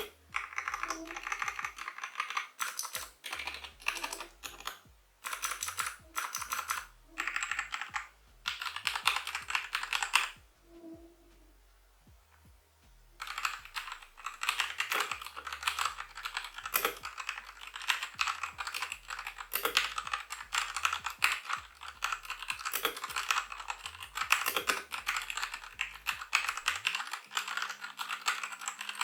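Ziyoulang (CPSTECH) T60 60% mechanical keyboard with red linear switches, foam-modded for a denser sound, being typed on. The keystrokes come in short groups for the first ten seconds, stop for about three seconds, then turn to fast, continuous typing.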